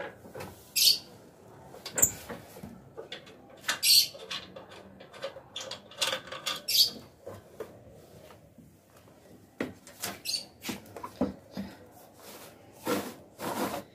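A folding manual treadmill's metal frame being handled and set up: scattered knocks and clanks, with short high squeaks now and then.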